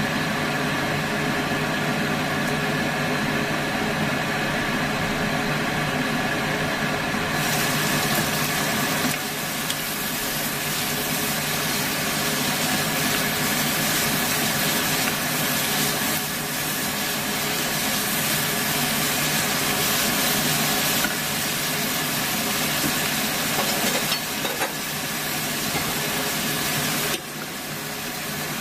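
Chicken, lotus root and bell peppers sizzling and steaming in a frying pan on an induction hob, over the hob's steady hum. The hiss gets brighter about seven seconds in, once the lid is off the pan.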